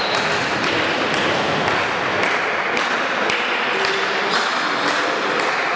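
Crowd noise filling a large sports hall, with a steady beat of sharp knocks about twice a second.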